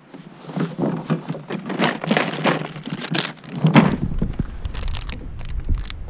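Close handling noise of fishing gear in a plastic kayak: a dense run of rustles, clicks and light knocks for about four seconds, thinning out near the end.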